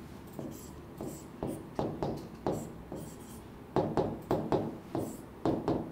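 A marker pen squeaking on a writing board as letters and colons are written out: a dozen or so short strokes with short pauses between them.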